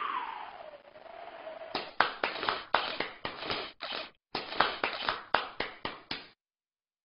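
Cartoon sound effects: a falling whistle-like glide that fades out, then a rapid run of sharp popping cracks, about four a second, with a short break in the middle, cutting off suddenly.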